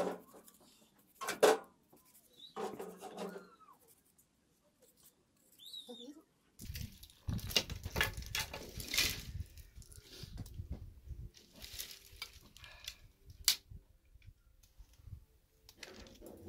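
Small knife clicks and crisp crunches as green peppers are cut by hand, with a louder stretch of rustling, rumbling noise for a few seconds in the middle.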